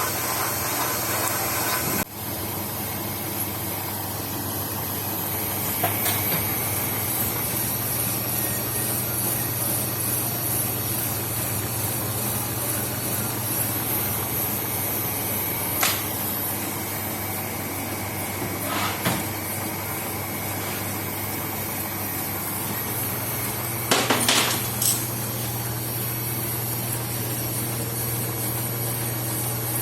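A metal-cutting machine tool running steadily, with a few sharp knocks scattered through the run.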